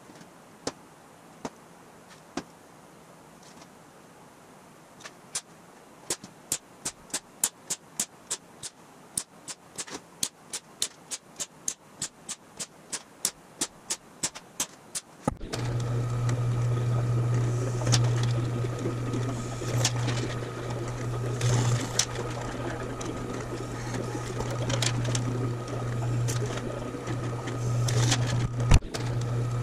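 A run of sharp metallic taps on the 1/8 inch aluminum sheet as hole positions are marked along its edge, a few spaced out at first and then about two a second. About fifteen seconds in, a drill press motor starts and runs with a steady hum and whine while the bit cuts through the aluminum.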